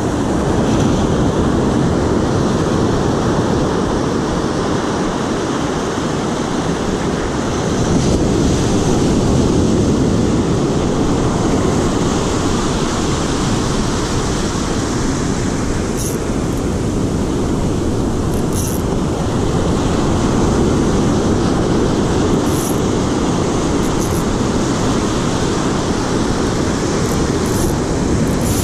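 Shallow ocean surf washing up the beach with wind on the microphone: a steady, loud low rush, with a few short high crackles in the second half.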